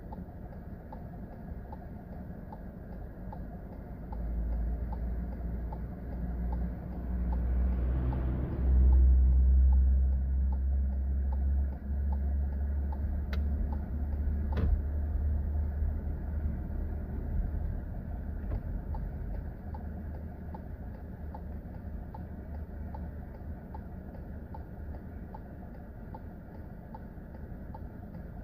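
Car driving: a steady low engine and road rumble that swells between about four and twelve seconds in, under a light, evenly spaced ticking. Two sharp clicks come near the middle.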